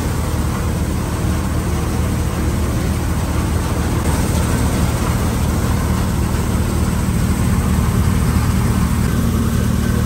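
Thresher running steadily under load: a low, even engine drone under a constant noisy rush of the working machine.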